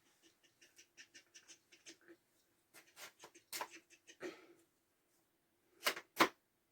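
Christmas tree ornaments and branches being handled: a quick run of light clicks and rustles, a few louder clicks and scrapes, then two sharp knocks close together near the end.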